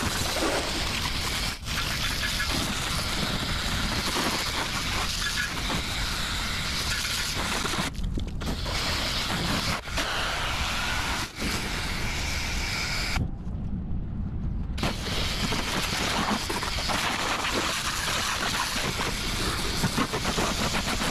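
High-pressure water jet spraying against the side and wheels of a truck, a steady hiss of water on metal that breaks off briefly a couple of times.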